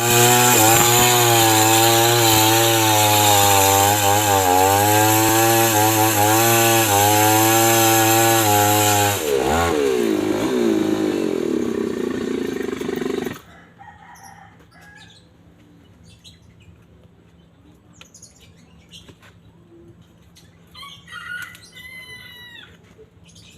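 Chainsaw engine running hard while cutting trembesi (rain tree) wood, its note wavering under load; about nine seconds in the pitch dips and rises, and it stops abruptly about 13 seconds in. Afterwards only faint clicks and a few short chirps.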